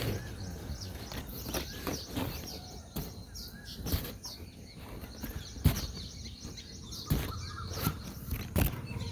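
Small birds chirping in short, high, repeated notes, some with a quick rise-and-fall shape. Several sharp knocks or taps cut through, the loudest a little past halfway.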